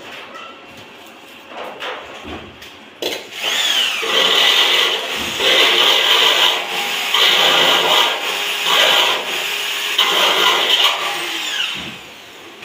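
Hand-held electric drill boring into a sheet-metal box, in several short runs of about a second each, spinning up and down between them. Light knocks and handling come before the first run.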